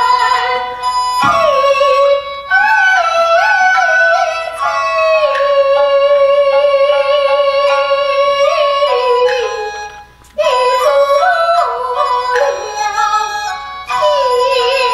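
Kunqu opera aria: a female voice sings a slow, ornamented melody over a bamboo flute accompaniment, with brief pauses about two seconds and ten seconds in.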